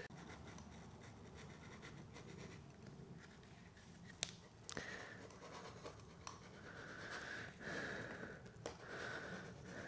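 Faint scratchy strokes of a utility knife cutting vinyl lino flooring, with one sharp tick about four seconds in and then a run of short cutting strokes in the second half.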